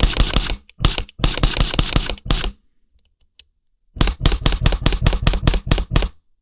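Airsoft rifle firing bursts of rapid shots: a first burst, a pause of about a second and a half in the middle, then a longer burst of about a dozen shots at roughly six a second, and one last shot near the end.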